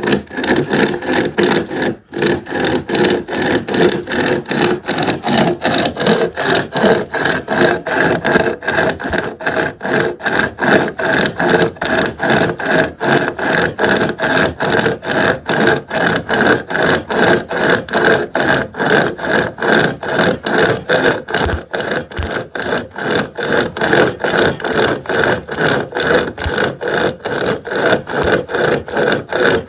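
SOG 36-inch pocket chainsaw, a hand-pulled chain with a handle at each end, cutting through a dried-out wooden 4x4 in fast, steady back-and-forth strokes as its teeth rasp on the wood.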